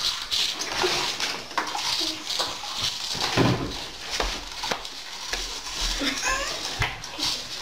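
Scattered small clicks, rustling and crunching from people eating and peeling fruit at a table: a citrus peel being torn, a banana being peeled, cheese puffs being eaten. A brief vocal sound comes about six seconds in.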